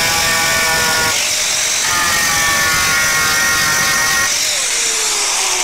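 Angle grinder with a metal-cutting disc running and cutting into a sunmica laminate sheet, its high whine shifting in pitch as the cut loads it. About four seconds in it is switched off and winds down, its hum falling steadily in pitch.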